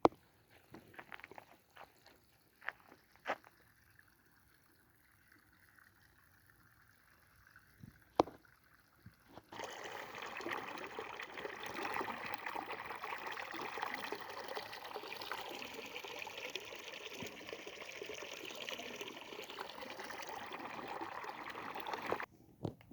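Spring water running in a steady stream that starts about a third of the way in and stops abruptly near the end. Before it there are a few scattered clicks and one sharp knock.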